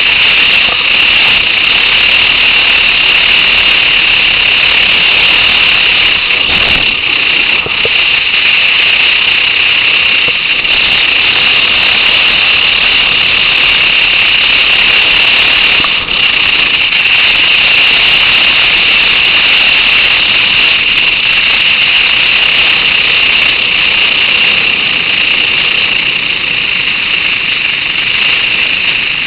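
Steady, loud rushing noise of a motorcycle ride at road speed: wind and engine noise on a low-quality camera microphone, with a harsh hiss.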